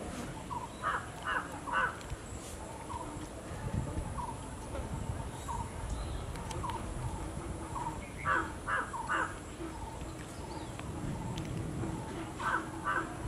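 Crows cawing outdoors in three bursts of three harsh caws each, about a second in, past the middle and near the end.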